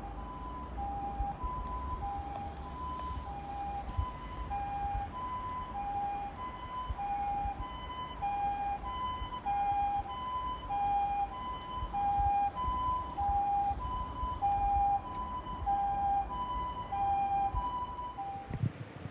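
Two-tone hi-lo ambulance siren, the Japanese "pee-po" kind, alternating evenly between a higher and a lower note. It grows louder toward the middle and cuts off near the end, over a low rumble of traffic.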